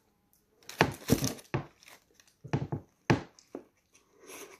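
Crinkly paper sandwich wrapper rustling in several short bursts as it is unfolded by hand.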